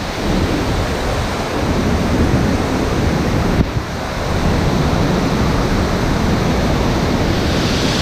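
Steady rushing of a waterfall, a loud even noise. It grows brighter near the end as the falling water comes close.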